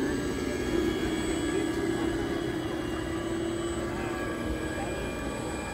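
Radio-controlled model boat motors humming steadily as the boats cruise on the water; the hum eases off after about three seconds. Faint voices can be heard in the background.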